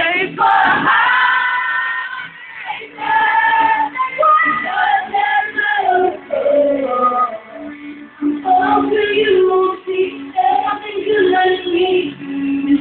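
Several voices singing together, holding and moving between sung notes like a choir.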